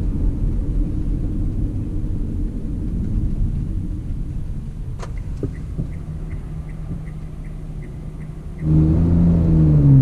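Cabin sound of a Hyundai Azera V6 running with its rear mufflers removed: a steady low exhaust rumble that eases off slightly as the car slows. From about six seconds a turn signal ticks about three times a second, and near the end the engine note jumps up sharply louder.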